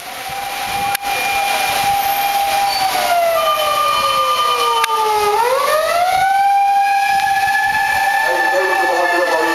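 Sirens of Japanese fire department emergency vehicles on a run. One holds a long steady note, slides slowly down and then sweeps back up about five seconds in, while a second, higher siren joins and follows the same fall and rise. There is a hiss of traffic on the wet road underneath.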